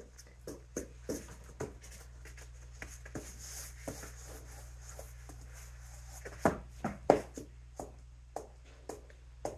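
Scattered light clicks and taps from hands handling small objects, with two sharper knocks about six and a half and seven seconds in, over a steady low hum.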